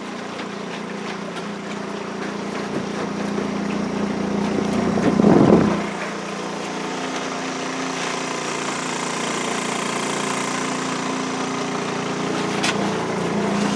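Honda four-stroke outboard motor running steadily with an even-pitched hum as the boat moves off, with a brief louder rush of noise about five seconds in.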